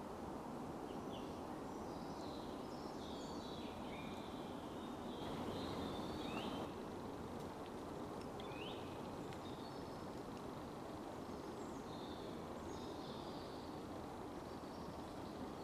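Woodland birds singing and calling in short chirps and slurred notes over a steady background hiss. A brief rush of noise about five seconds in lasts a second and a half.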